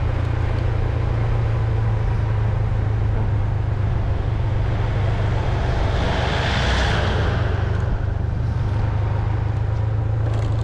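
Steady engine and wind noise of a moving motorbike. An oncoming small truck passes about six to seven seconds in, a rush of noise that swells and fades.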